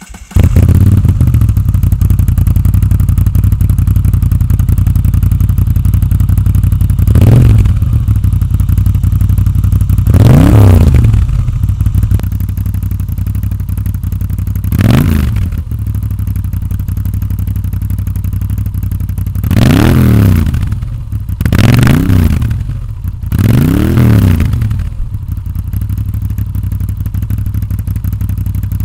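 2017 Moto Guzzi V9 Roamer's air-cooled V-twin, breathing through Agostini short slip-on mufflers with dB killers fitted, firing up and settling into a steady idle. It is blipped six times, each rev rising and falling in pitch.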